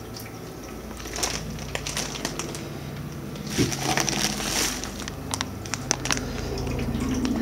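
Plastic trash-bag lining crinkling and crackling as a hand rummages through it, in uneven bursts of rustles and sharp crackles.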